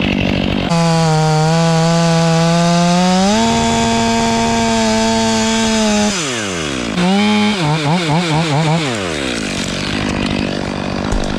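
Stihl 500i chainsaw at high revs cutting wood. Its pitch steps up about three seconds in and falls away about six seconds in. It is then revved up and down several times in quick succession before settling to a lower, steady speed.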